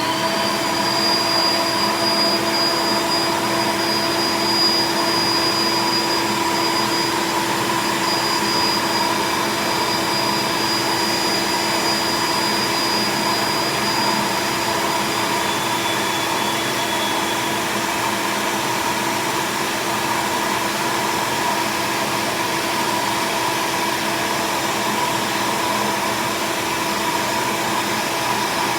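A vacuum cleaner with a brush attachment running steadily while vacuuming a laptop keyboard. It is a loud, even motor whine, with a thin high whistle that fades out about halfway through.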